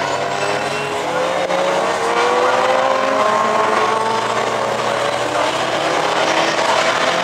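A pack of racing cars passing at full throttle, several engines at once. Their notes climb in pitch, drop back and climb again as the cars accelerate through the gears.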